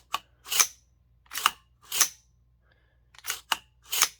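AR-15 bolt carrier group, a Spikes Tactical bolt, being cycled by hand with a Bear Creek Arsenal Warhammer charging handle: seven short metallic sliding strokes as the carrier runs back and forward in the upper receiver, with brief pauses between.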